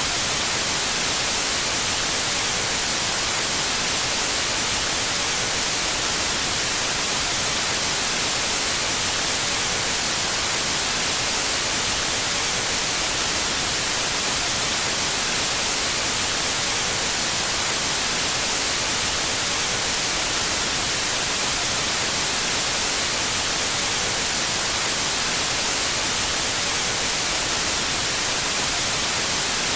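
Loud, steady static hiss, strongest in the high end and unchanging.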